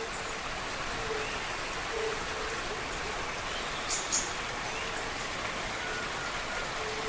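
Steady rush of falling water from a waterfall, with a bird giving short, low, repeated hooting calls over it and a couple of brief high chirps about four seconds in.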